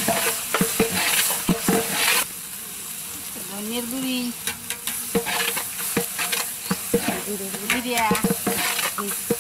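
A long metal ladle stirring and scraping a frying onion and spice paste in a large aluminium cooking pot, with repeated knocks of the ladle against the pot over the sizzle of the oil. The sizzle drops back about two seconds in.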